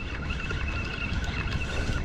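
Motorboat under way at trolling speed: the motor runs with a steady high whine over a low rumble and rushing wind and water.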